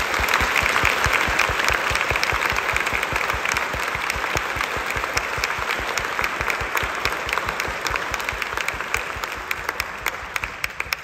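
Large audience applauding: dense, loud clapping that fades somewhat near the end.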